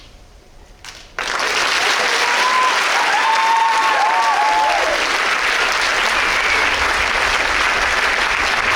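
Audience breaks into loud applause about a second in and keeps clapping steadily, with a few voices calling out in the first seconds.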